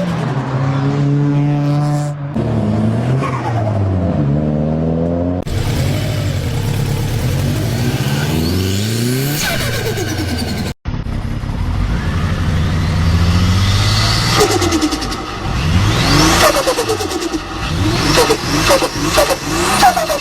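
Turbocharged car engines revving hard and dropping off throttle, several times over, with the fluttering chatter of turbo compressor surge as the throttle snaps shut. The engine pitch climbs and falls again and again, cut abruptly between different cars.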